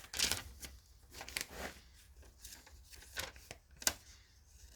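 Paper rustling as it is handled and leafed through, with a few light knocks and one sharper click near the end.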